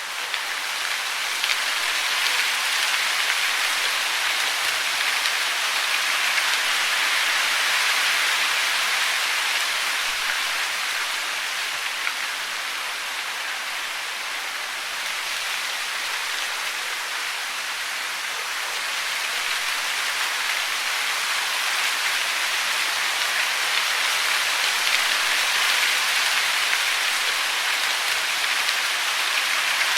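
Steady, dense hiss of falling water, fading in over the first couple of seconds and then holding even.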